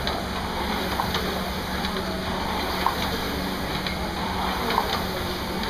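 Rowing machine's flywheel whooshing steadily under a hard row, with a small knock about every two seconds as each stroke comes round.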